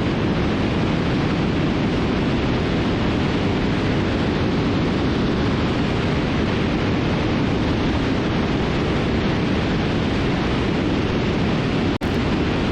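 Steady rush of engine and airflow noise from a Cessna T310R in cruise flight, with its twin turbocharged six-cylinder engines running. The sound drops out for an instant near the end.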